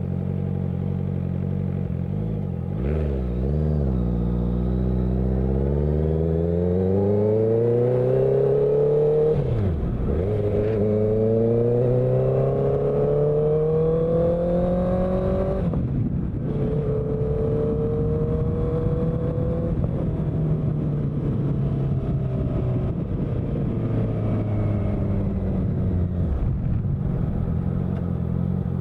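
Honda CBR650F inline-four motorcycle engine running steadily with a couple of quick blips, then pulling up through the revs with two gear changes. It then rolls off and winds down slowly near the end.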